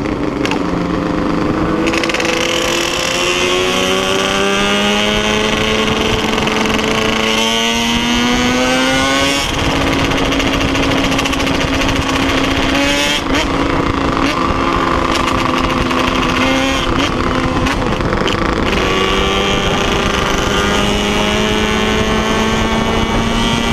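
Loud modified 421cc Yamaha two-stroke motorcycle engine under way. Its pitch climbs slowly as it accelerates, breaks at a gear change about ten seconds in, holds steady for a while, then climbs again near the end.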